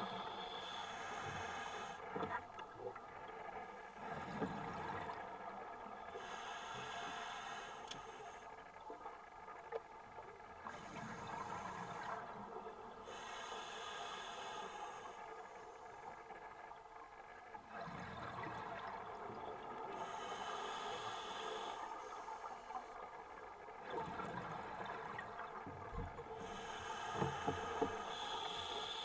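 Scuba breathing through a regulator underwater: a hiss with each breath in and bubbling on each breath out, repeating every few seconds. A few short knocks and rubbing come from hands working in a fishing net.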